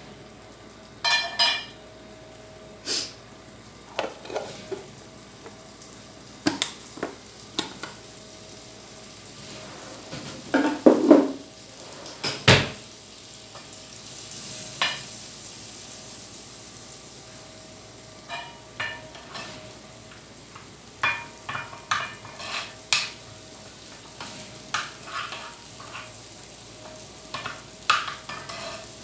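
A spoon clinking and scraping against a small frying pan as butter with red pepper flakes is stirred over the flame, with a faint sizzle. The taps come at irregular intervals, and the loudest knocks fall about eleven to twelve seconds in.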